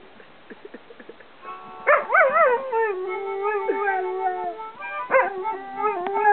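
Dog howling along to a blues harmonica: after a short quiet stretch with a few faint clicks, the harmonica comes in with held chords and the dog howls over it, its pitch wavering up and down, with another howl about five seconds in.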